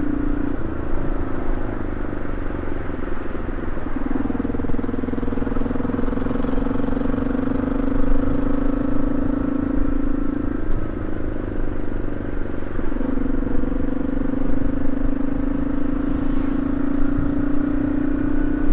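Yamaha XT225 Serow's single-cylinder four-stroke engine running steadily under way, heard from the rider's seat. Its note shifts briefly a few times, about four seconds in and again around ten and thirteen seconds in.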